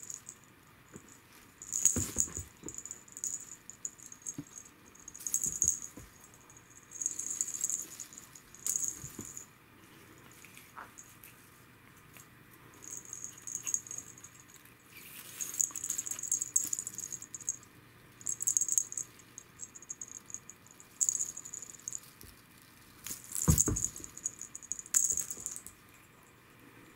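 Shiny metallic tape streamers of a Petio Shooting Star cat teaser wand crinkling and rustling in repeated bursts as a cat bats and bites at them. There are a couple of dull thumps, about two seconds in and the loudest near the end.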